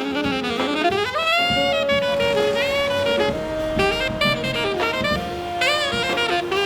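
Saxophone-led jazz ensemble music: a melody slides down and back up, then settles into long held notes in two voices.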